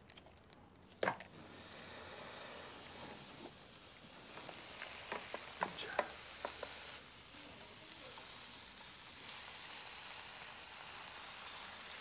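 Food sizzling in a hot pan, a steady frying hiss. A sharp knock comes about a second in, and several light clicks and taps follow around the middle.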